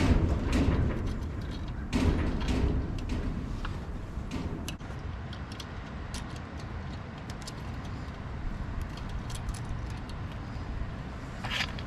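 Hands working on an ATV winch's bolts and metal parts: a couple of knocks at the start and about two seconds in, then scattered small clicks and clinks, over a steady low rumble.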